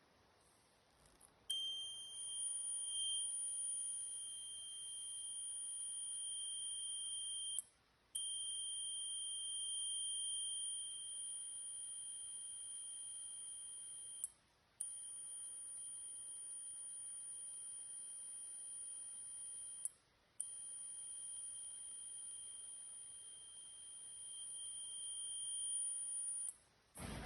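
Alarm buzzer of an Arduino-based smoke and gas detector, sounding a steady high-pitched tone: the sign that smoke or gas has been detected. It starts about a second and a half in and holds for about six seconds at a time, with three short breaks.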